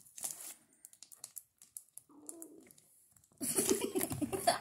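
Sticky slime being pulled and squished by hand: a few faint clicks, then a denser crackling and squelching starts about three and a half seconds in.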